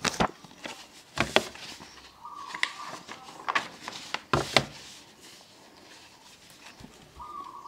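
Several short, sharp clicks and knocks at uneven intervals, two of them louder, with a brief steady tone twice: drama sound effects during a flashback.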